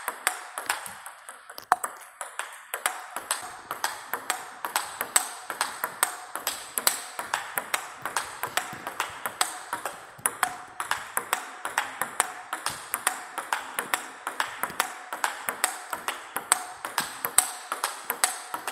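Table tennis forehand-drive rally: the ball clicks sharply off rubber-faced paddles and bounces on the table in a quick, even run of clicks, about three a second. The hits carry the characteristic crack of a tacky Chinese rubber.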